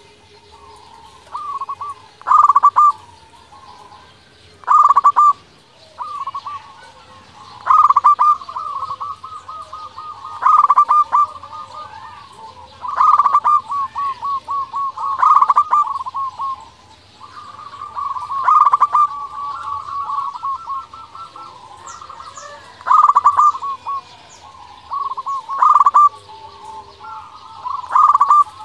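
Local zebra dove (perkutut) singing: its rolling, staccato coo repeated phrase after phrase, each with a loud stressed note and a rapid trill, about every two to three seconds.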